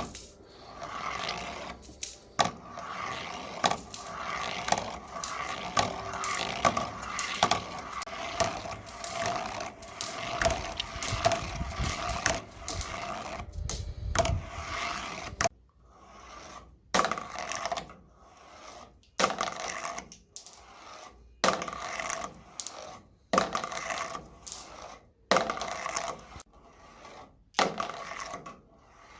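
Marbles rolling and clattering along a marble run track, a steady rolling hum broken by frequent sharp clicks as they strike the track and jump between paths. About halfway through, the dense clatter gives way to separate runs of rolling and clicks, about one a second, with short quiet gaps between.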